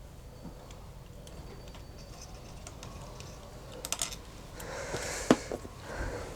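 Light, irregular clicks and taps of hand tools and small metal parts being handled while the motorcycle's clutch cable is taken off, growing busier in the second half, with a brief rustle and one sharp click about five seconds in.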